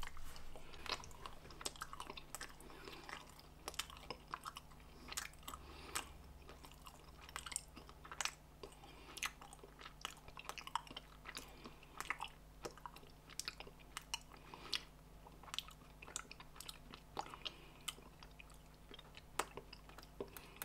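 Someone chewing a bite of Snickers Crunchy Peanut Butter bar close to the microphone, with irregular crunches from the chocolate-coated crunchy peanut butter and peanut filling.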